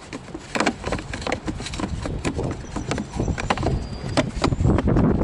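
Hands refitting the plastic cover over a truck's cabin air filter: a series of irregular clicks and knocks. A low rumbling noise builds near the end.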